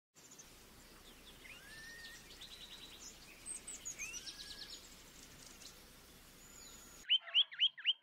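Songbirds (sirtu) calling: faint, varied whistled chirps, rising notes and short rapid trills over a steady hiss. About seven seconds in, the sound cuts to a louder, closer bird repeating a sharp upward-sweeping call about four times a second.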